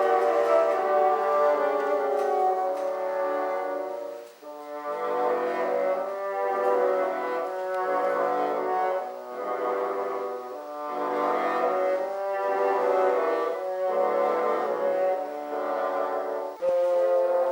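A bassoon ensemble playing slow, sustained chords in short phrases, with brief breaks between them. The sound jumps abruptly louder near the end.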